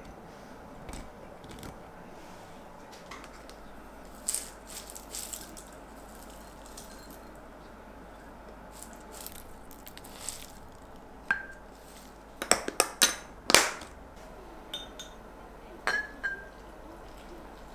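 Dishes and kitchen utensils being handled: scattered light clicks and clinks, a few ringing briefly, with a quick run of louder knocks about twelve to thirteen and a half seconds in.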